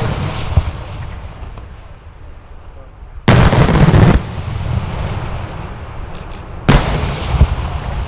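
Daylight fireworks salutes exploding overhead: a sharp bang at the start, a loud second-long run of blasts about three seconds in, and another sharp bang near seven seconds, each trailing off in a rolling echo.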